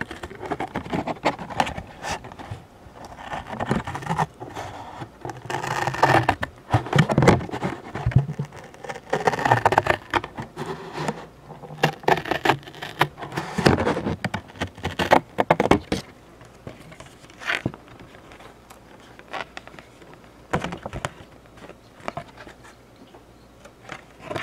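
Cardboard Funko Pop box being handled right at the microphone: quick scraping, tapping and crackling of the card. The sounds are dense for roughly the first two-thirds and then thin out to occasional taps.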